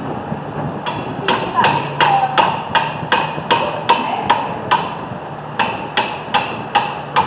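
Hammer striking metal in a steady run of ringing blows, about three a second, with a short break around five seconds in.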